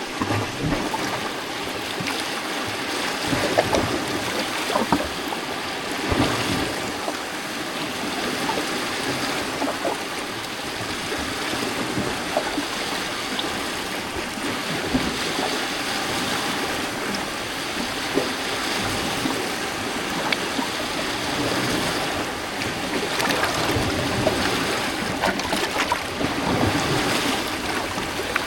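Small lake waves lapping and sloshing against a rocky shore, a steady wash of water broken by many small splashes among the rocks.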